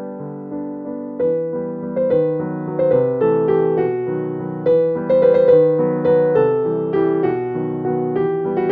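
Background piano music: a gentle melody of struck notes over chords, growing a little louder after the first couple of seconds.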